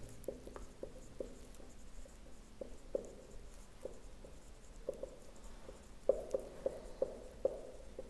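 Marker writing on a whiteboard: faint, short strokes of the tip on the board, coming irregularly, with a louder, quicker run about six seconds in.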